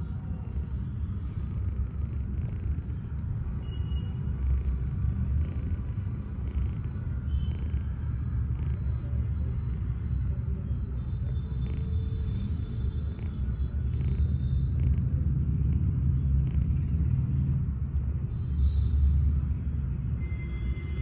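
Persian kitten purring steadily, close to the microphone, as a continuous low rumble.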